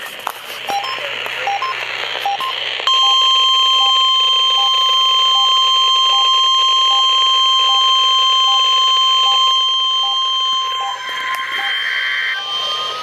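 NOAA Weather Radio warning alarm tone, the steady 1050 Hz test tone, received through a weather radio. It starts about three seconds in, after a few seconds of radio hiss with a faint regular beeping, and cuts off about eleven seconds in. A faint rising whistle follows it.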